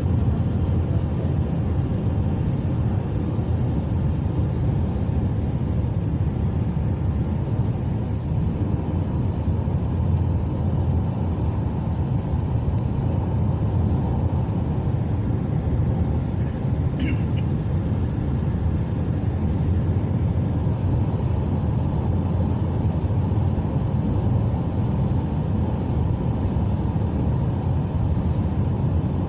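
Steady engine and tyre noise from inside a moving vehicle on a highway: a continuous low rumble with no breaks.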